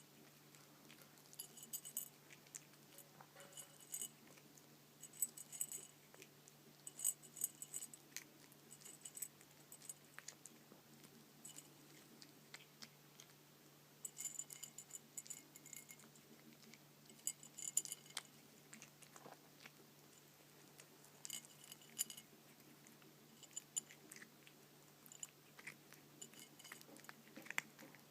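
A cat eating dry kibble, faint crunching chews with bursts of light, ringing clinks every second or two.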